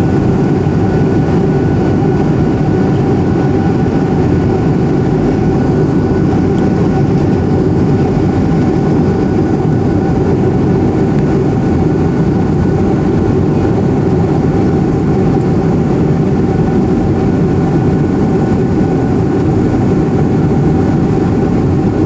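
Airplane cabin noise in flight: the steady drone of engines and rushing air, loud and unchanging, with a few faint steady whine tones over it.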